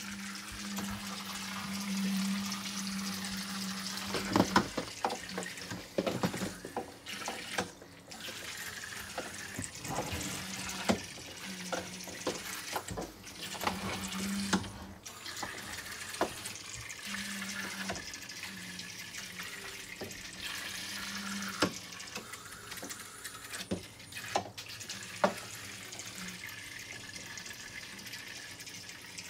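Battery-powered Zuru Micro Boats toy speedboats running in a water-filled plastic track: the tiny motors hum on and off while the propellers churn and splash the water, with occasional sharp knocks.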